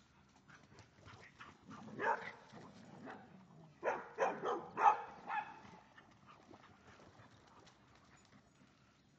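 A dog barking: one bark about two seconds in, then a quick run of four or five barks about four to five and a half seconds in.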